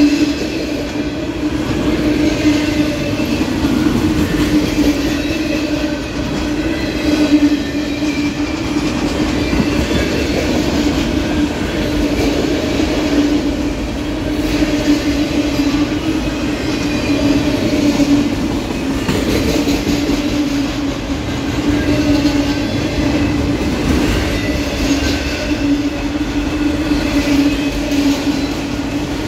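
A string of autorack freight cars rolling past at speed: a steady rumble and rattle of steel wheels on rail, with a continuous drone.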